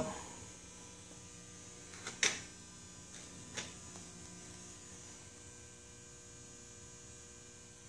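Faint steady electrical hum, with two brief knocks about two and three and a half seconds in.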